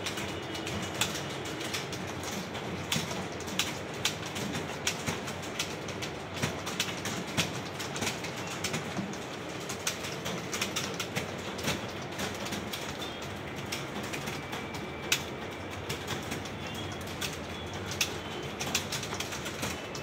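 Many computer keyboards being typed on at once: a dense, irregular clatter of keystrokes.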